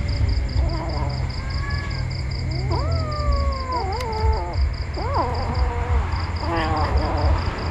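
Kittens mewing, several separate calls that rise and fall in pitch, one long drawn-out mew about halfway through and a rougher one near the end.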